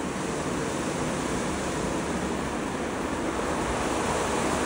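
WashTec gantry car wash on its brushing pass: rotating wash brushes and water spray working over the car body, a steady rushing noise that slowly grows louder.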